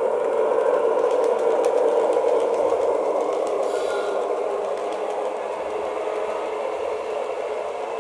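Brass HO-scale JR E353 model train running on its track, its ESU LokSound 5 DCC decoder playing an electric train's running sound through a small on-board speaker along with the whir of the model's drive. The sound grows slowly quieter as the train moves away.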